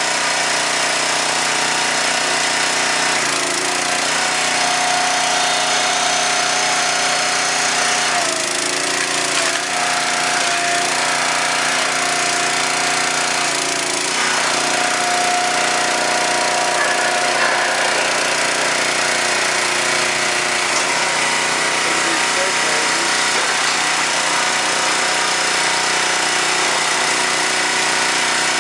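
Huskee 22-ton log splitter's engine running steadily, with a whining tone that comes and goes and shifts in pitch as the splitter works a log.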